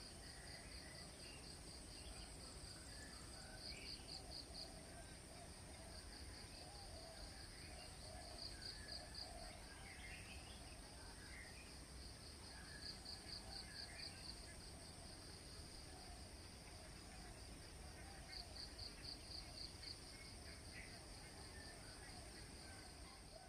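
Faint rural dawn ambience over rice paddies. Insects keep up a steady high-pitched drone, and a pulsing insect trill sets in every few seconds. Birds give short scattered calls throughout.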